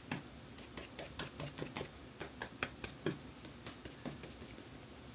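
Cushion-foundation puff patting against the skin and the compact: soft, irregular little taps, several a second.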